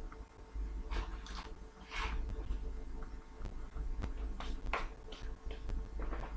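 A few short rustles and light taps of baking paper and a metal baking tray as raw cookies are nudged into place on it, over a low steady hum.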